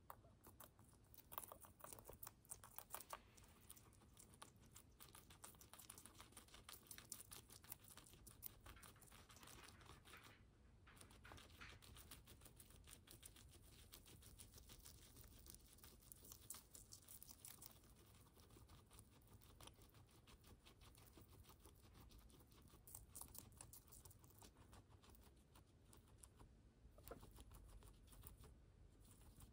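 Guinea pigs eating carrot and parsley: faint crunching and nibbling, a dense run of small rapid clicks.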